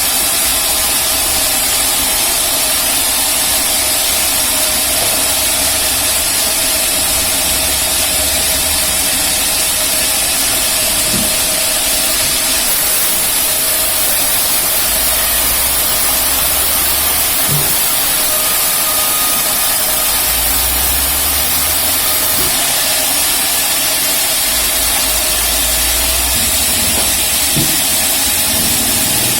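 Rail-mounted band sawmill running steadily, with a constant loud hiss over a steady hum and a low rumble that swells and fades.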